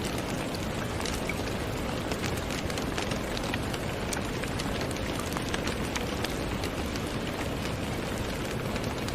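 Steady rain falling, a continuous hiss with many individual drops ticking sharply through it.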